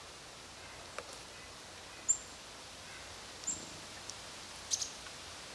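A few short, very high bird chirps spread over a steady outdoor background hiss.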